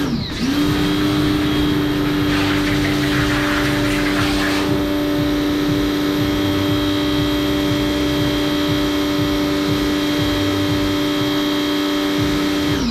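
Electric pressure washer running with a steady motor-and-pump hum. It cuts out and starts again right at the start and winds down in pitch near the end. Between about two and five seconds in there is a louder hiss of spray.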